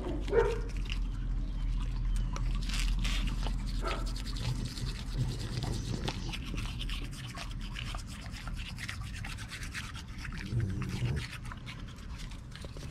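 A toothbrush scrubbing a dog's teeth: a run of quick, scratchy brushing strokes with small wet mouth clicks.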